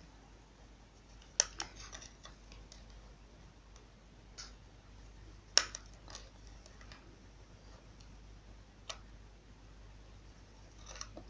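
Clear flat glass beads clicking against each other as they are threaded onto an elastic cord and pushed along it: a few sharp, scattered clicks, the loudest about halfway through.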